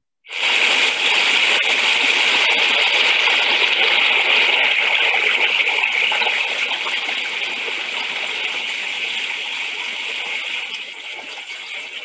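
Fast-flowing river gurgling and rushing in a steady stream of water noise. It starts just after the narration stops and slowly fades in the second half.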